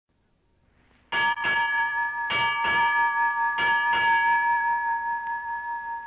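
A bell struck in three pairs about a second apart, its clear tone ringing on and slowly fading after the last strike.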